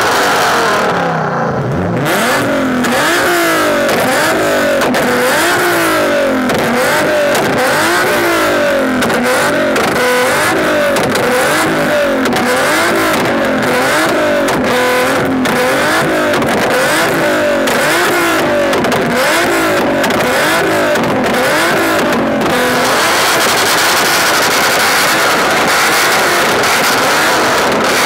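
A car engine revved over and over in quick throttle blips, each one rising and falling in pitch, more than once a second. The blipping dies away near the end.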